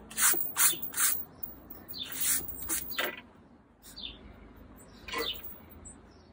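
Rubber eraser and pencil working on drawing paper: a run of short, scratchy strokes with a slight squeak. The three loudest come in the first second, and fainter ones follow.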